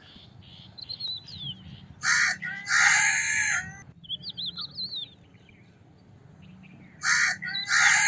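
A crow cawing twice, each time a short caw followed by a longer, drawn-out one. Smaller birds chirp faintly in the gaps.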